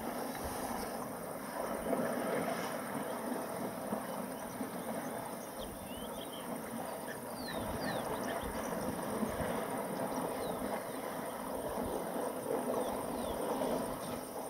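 Outdoor waterhole ambience: a steady rustling noise throughout, a high thin insect trill, and a few short bird chirps about midway through.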